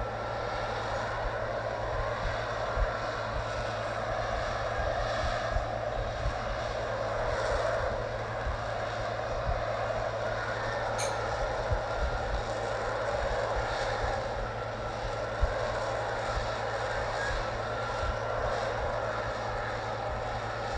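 F-35B Lightning II hovering in short-takeoff/vertical-landing mode, its F135 jet engine and lift fan making a steady jet roar with a rumbling low end. A few sharp cracks stand out, at about three seconds in, about eleven seconds in and near fifteen seconds.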